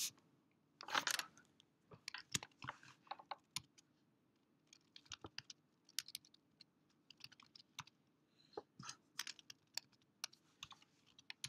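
Faint, irregular key clicks of typing on a computer keyboard, entering a terminal command, with a brief soft burst of noise about a second in.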